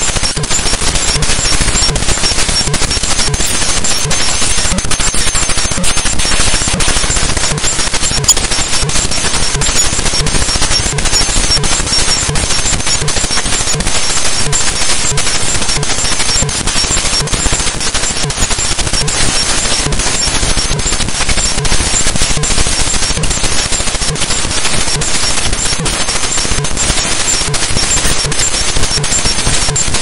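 Binary data from the APT package cache file srcpkgcache.bin played back as raw 32-bit float audio: a loud, harsh hiss thick with rapid crackling clicks, unbroken and without pitch or rhythm.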